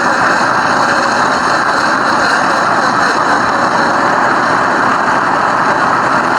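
Simulated engine sound of an FMS RC scale car, running steadily with a heavy, truck-like engine note.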